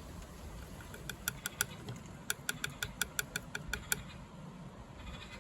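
A bird in the roof calling in quick runs of short, high chirps, about six or seven a second, in two bursts starting about a second in, over a low steady rumble.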